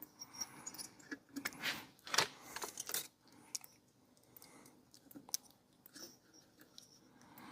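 Small chainsaw parts and tools being handled on a workbench: scattered light clicks and rattles, with a denser stretch of scraping and clatter about two seconds in.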